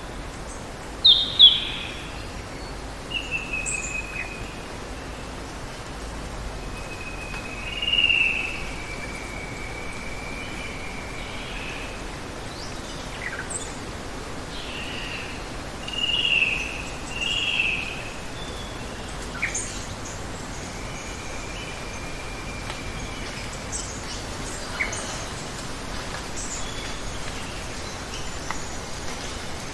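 Birds calling over a steady hiss of running water: a sharp call about a second in, then drawn-out whistles and short chirps spaced several seconds apart.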